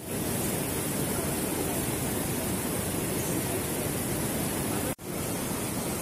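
Steady rushing of a swollen river running over rocky rapids, an even noise with no pitch. It cuts out for an instant about five seconds in.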